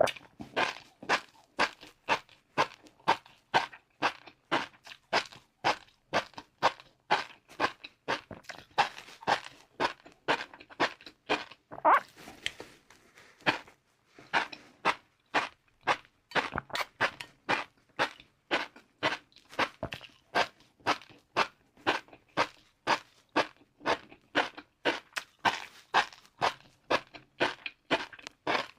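Close-miked chewing of crispy fried noodles: steady, rhythmic crunching at about three chews a second, with a short pause near the middle.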